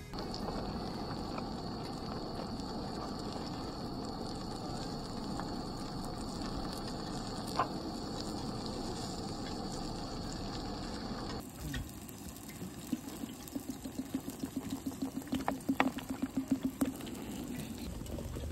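Steady hiss of food cooking, with a thin high whine over it. After a cut about two-thirds of the way through comes a quick run of taps and knocks.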